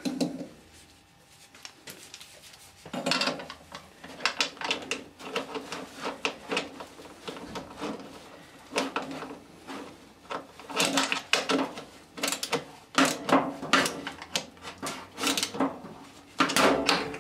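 Ratchet and socket tightening the locking nut on a washing machine motor's mounting bolt: runs of sharp clicks in repeated strokes as the handle is worked back and forth, starting about three seconds in.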